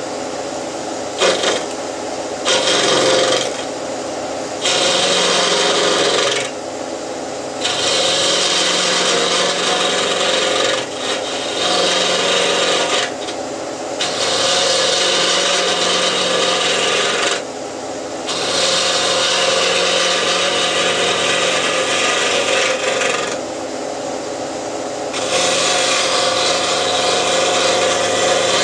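Wood lathe spinning a segmented bowl at about 1,200 rpm while a turning tool takes roughing cuts inside it, an interrupted cut through raw, protruding segment ends. The cutting comes in passes of a few seconds each, with the lathe's steady hum between them.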